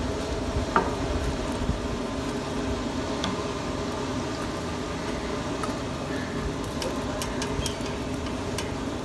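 Steady mechanical hum holding several low tones, with a few light metallic clicks and scrapes of a spatula on a flat steel griddle as parathas are turned.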